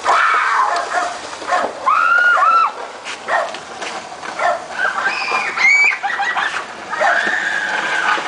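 Young girls shrieking and squealing in short high-pitched cries that rise and fall, ending in one long held squeal near the end.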